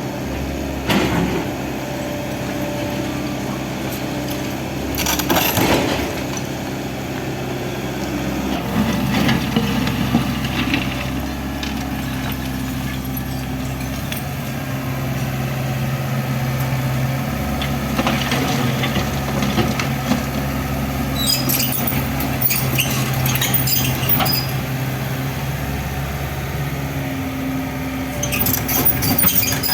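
Excavator's diesel engine running steadily under load, with intermittent crunching and clattering as debris from the building is broken and falls, the loudest around 5 seconds in and near the end.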